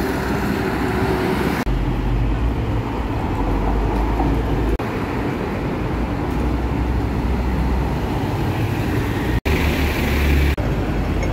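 Busy city street traffic, with diesel trucks and buses passing and a heavy low engine rumble over tyre and road noise. The sound changes abruptly several times.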